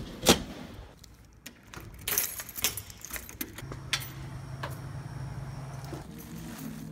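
Scattered light clicks and rattles, then a low steady hum that sets in about halfway through.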